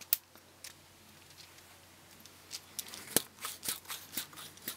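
Little sound for about two and a half seconds, then a run of small plastic clicks and knocks as LEGO Technic parts of a pneumatic pump assembly are handled and pushed back together. The loudest knock comes about three seconds in.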